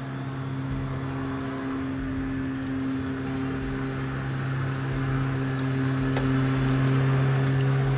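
Battery-powered push lawn mower running steadily, its electric motor and blade giving a constant hum that grows louder as the mower comes closer.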